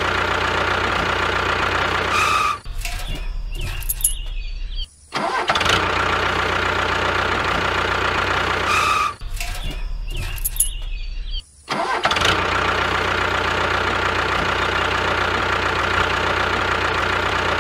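Dubbed-in tractor engine sound, running steadily with short breaks where it cuts out and starts again. The same recording loops about every six and a half seconds.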